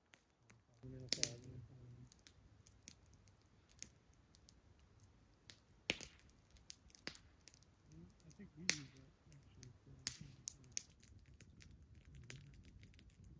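Wood campfire crackling, with irregular sharp pops and snaps scattered throughout. Faint low voices come in briefly about a second in and again near nine seconds.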